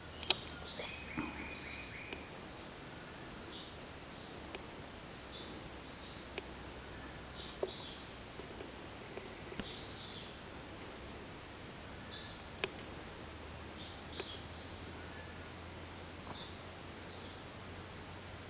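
Forest ambience: short high chirps from a bird or insect repeating every one to two seconds over a steady background, with a few sharp clicks.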